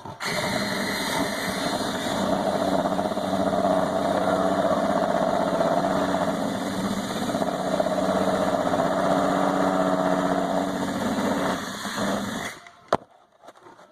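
Cordless drill motor running steadily under load as the bit cuts, for about twelve seconds. It then stops suddenly, followed by a single sharp click.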